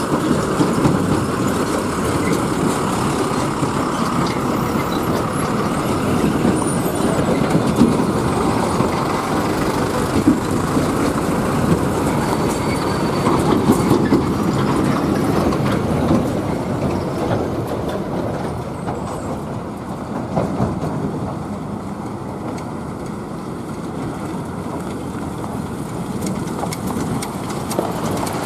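Heavy trucks driving along a road: a steady, loud rumble of engines and tyres that eases off a little in the last third.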